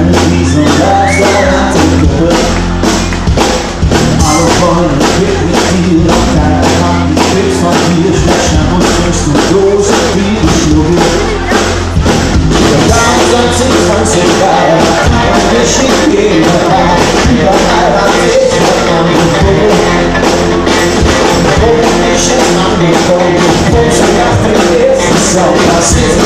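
Live pop-rock band playing loudly with a steady drum beat, heard from the audience.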